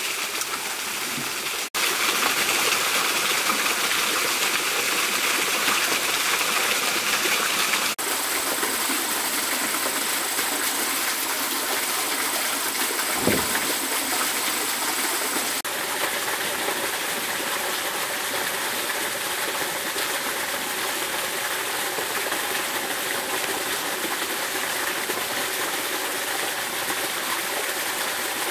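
Steady rushing of flowing stream water and a small waterfall, with one short dull thump about halfway through.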